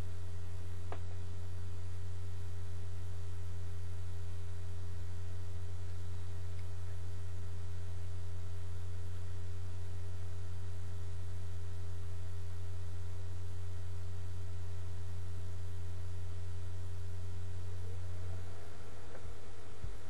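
Steady low electrical hum with an even hiss underneath, the background noise of a poor-quality recording microphone, with one faint click about a second in.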